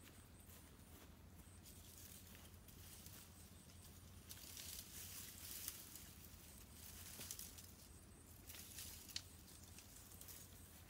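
Faint rustling and crackling of leafy branches being pulled and broken off a sapling by hand, in several short spells from about four seconds in, with a sharp snap about nine seconds in.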